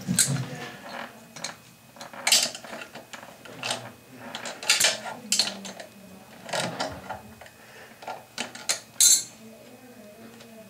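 Irregular metallic clicks, clinks and scrapes of hand tools and fittings being worked, the sharpest click about nine seconds in.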